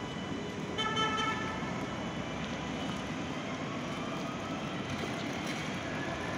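A T2 tram pulls away from the stop, and its traction motors give a whine that rises steadily in pitch as it gathers speed. About a second in, a short horn toot sounds.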